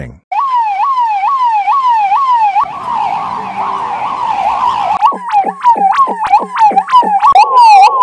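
Indian police car electronic siren, pitch swinging up and down about twice a second, played in edited variations: plain at first, then echoey and blurred about two and a half seconds in, then with each cycle swooping deep down about five seconds in, turning to faster chirps near the end.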